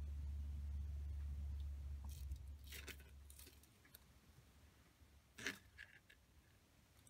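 Hands handling small craft pieces, a strand of pearl beads and wooden clothespins, making light clicks and rustles, with one sharper click about five and a half seconds in. A low hum stops about two and a half seconds in.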